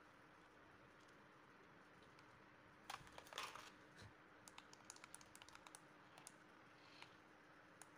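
Faint handling noise and light plastic clicks from a toy RC car and its plastic remote control being handled. A short scuffling burst comes about three seconds in, followed by a run of quick small clicks.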